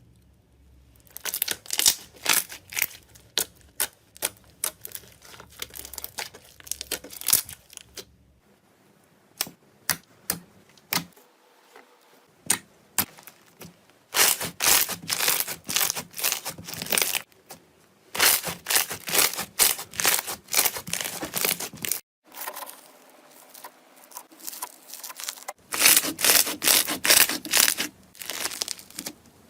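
Slime being squeezed and pressed by hand, making rapid crackling clicks and pops in bursts. It comes in several separate takes that change abruptly.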